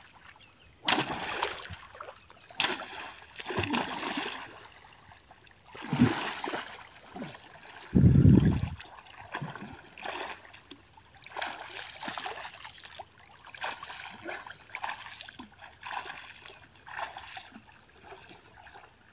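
River water splashing as a man wades and strikes at the surface with a stick, then splashes in swimming strokes roughly once a second. One loud, dull low thump comes about eight seconds in.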